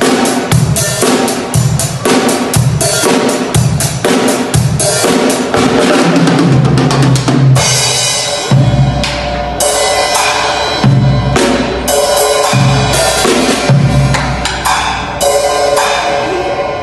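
A drum kit being played: quick, dense strikes on the drums and cymbals, with ringing low drum notes.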